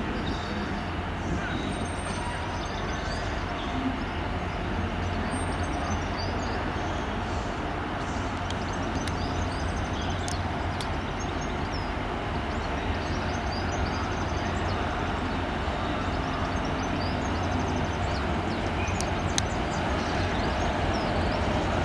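Class 60 diesel locomotive approaching slowly with a freight train, its eight-cylinder Mirrlees diesel engine giving a steady low hum that grows gradually louder as it nears.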